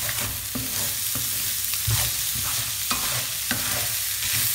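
A wooden spatula stirring and scraping a pan of ground beef and diced vegetables being fried, in strokes a little under two a second, over a steady sizzle.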